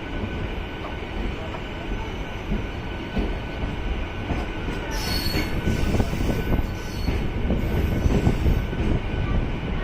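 MEMU electric passenger train running on the tracks: a steady rumble and rattle of wheels on rail, with a brief high-pitched wheel squeal about halfway through.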